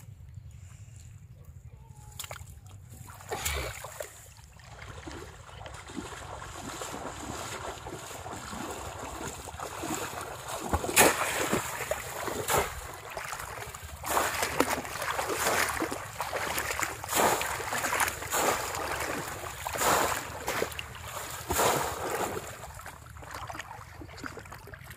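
Shallow water splashing and sloshing as someone wades through it and plunges a bamboo polo fish trap into it, over and over. The splashes come thick and loud in the middle stretch, then ease off near the end.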